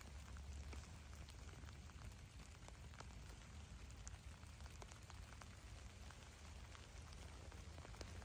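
Light rain falling: faint, scattered drops ticking irregularly over a steady soft hiss, with a low rumble underneath.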